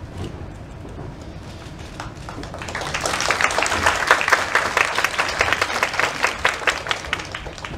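Arena crowd clapping, swelling about three seconds in and fading near the end.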